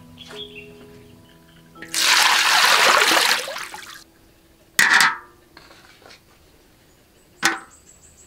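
Water is poured into a wok and splashes for about two seconds. Two sharp knocks follow, about two and a half seconds apart, as cookware is set down on the wok. Soft background music plays at the start.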